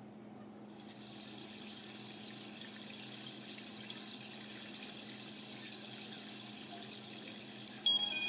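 Steady hiss of running water fading in about a second in. Just before the end, chime-like musical notes begin over it.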